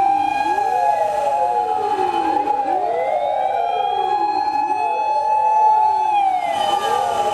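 Several Japanese fire engine sirens wailing at once, their pitches rising and falling out of step with one another, with one siren holding a steady high tone.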